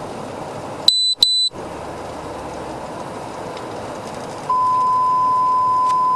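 Police radio alert tones: two short, high beeps about a second in, then a long, steady, loud tone starting near the end, the alert sounded before a dispatch broadcast.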